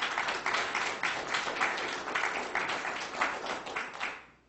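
Audience applauding, dying away shortly before the end.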